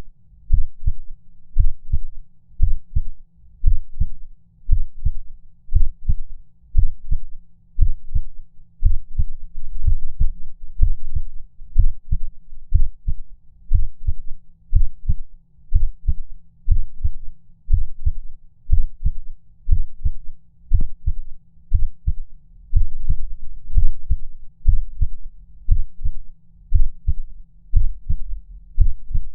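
Heartbeat sound effect: low, dull thuds in lub-dub pairs repeating about once a second, meant as a heart skipping beats.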